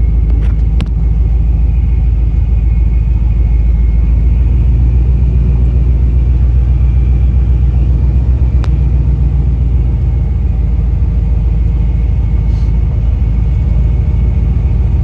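Supercharged Chevy OBS pickup's engine running as the truck drives along, a loud, steady low rumble with no clear revving.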